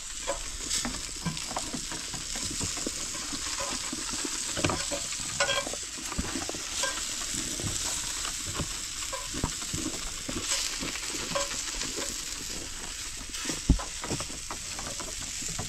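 Flour-dusted coral trout pieces shallow-frying in hot oil in a pan: a steady sizzle with scattered small crackles and pops. One sharp knock comes near the end.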